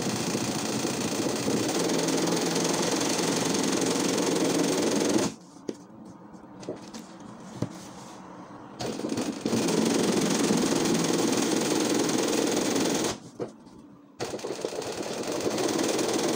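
Sewing machine running fast in steady stretches, stitching a filling stitch across embroidery on fabric. It stops about five seconds in for some four seconds, with a few soft clicks while it is stopped, and halts again briefly about three seconds before the end.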